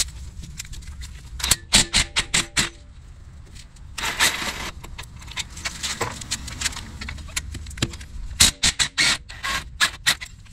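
Cordless DeWalt impact wrench running in several short bursts of rapid impacts, backing out the front brake caliper's mounting bolts.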